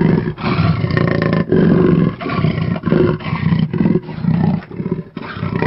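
A large farm animal calling loudly in a run of repeated low calls, about two a second.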